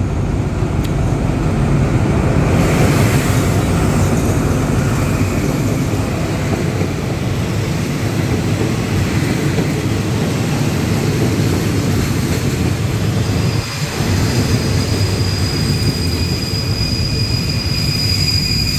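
Diesel locomotive passing close, then passenger coaches rolling by along the platform with a steady low rumble. Over the last few seconds a thin, high steady squeal of wheels or brakes rises above it as the train slows.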